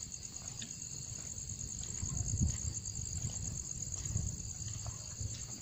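Night crickets chirping in a steady, high, pulsing chorus, with a few faint low thuds, the clearest about two and a half seconds in.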